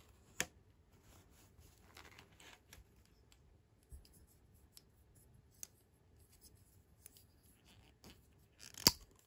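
Small plastic doll-toy pieces handled by hand: faint rustles and light ticks, with a sharp click shortly after the start and a louder plastic click near the end as the cap is pulled off a miniature toy nail-polish bottle.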